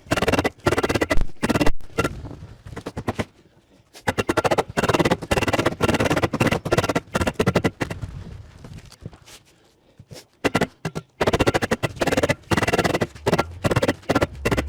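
Background music with a fast percussive drum beat, pausing briefly twice.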